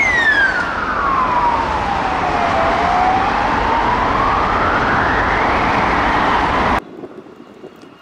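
Siren of a fire service Toyota Hilux pickup responding on blue lights, in wail mode: one slow sweep down in pitch and back up, over steady traffic noise. It cuts off abruptly near the end, leaving quieter street sound.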